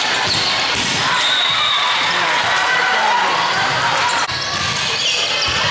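Echoing sports-hall din of volleyball play: sneakers squeaking on the court floor, balls being struck and bouncing, and the voices of players and spectators.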